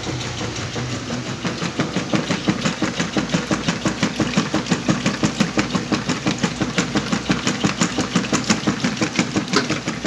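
Whirlpool top-loading washing machine agitating a load of blankets in water, running with a fast, even pulse that grows louder about a second and a half in.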